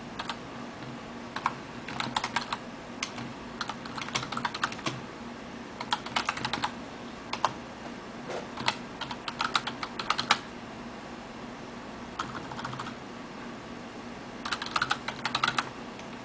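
Computer keyboard being typed on in short, irregular bursts of keystrokes with pauses between words, over a steady low hum.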